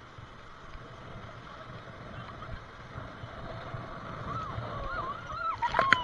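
Rushing whitewater of a river rapid around an inflatable raft being paddled through it. In the last couple of seconds people shout faintly, and a sudden loud splash comes just before the end.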